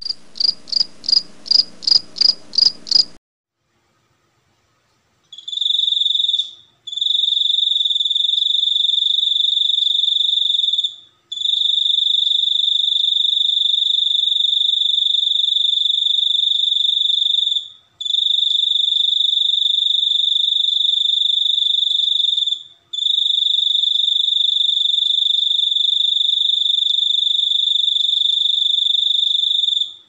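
Crickets calling. First comes a quick run of evenly spaced chirps, about three a second. After a short silence, a steady, high, unbroken trill follows in long bouts of several seconds each, separated by brief breaks.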